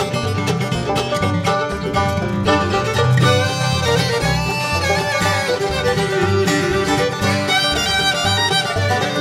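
Bluegrass band playing an instrumental break between verses: a fiddle takes the lead with sliding, wavering notes over picked banjo, acoustic guitar and upright bass.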